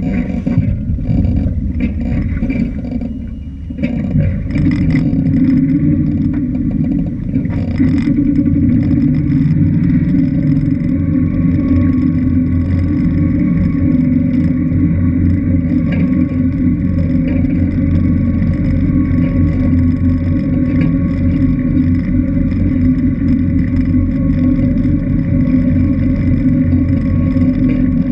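Motorboat engine running steadily, with a brief dip about four seconds in.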